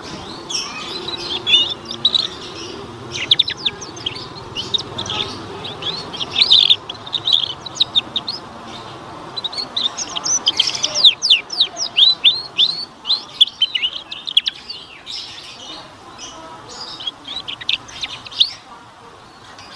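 Canary singing in long, fast phrases of high chirps and quick downward-sweeping notes, with short breaks between phrases.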